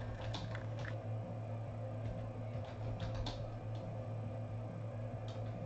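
A few scattered light clicks of a computer keyboard over a steady low hum.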